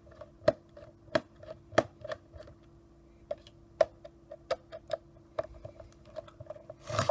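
Small sharp clicks and taps, irregular and about one or two a second, of a fine #000 Phillips screwdriver working tiny screws out of a camcorder's plastic casing, over a faint steady hum.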